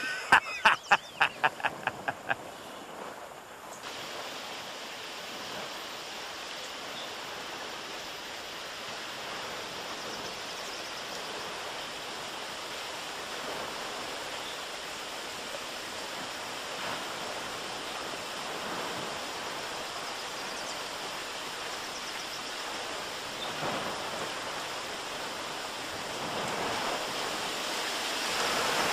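A quick run of fading whoops over the first couple of seconds, then a river rushing steadily, swelling slightly toward the end.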